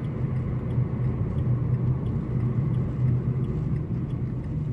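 Steady low hum of engine and road noise inside a moving car's cabin.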